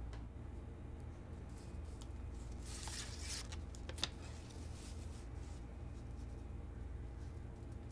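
Paper rustling as a small stack of folded handwritten notes is handled and leafed through, with a longer rustle about three seconds in and a short crisp click about a second later, over a low steady room hum.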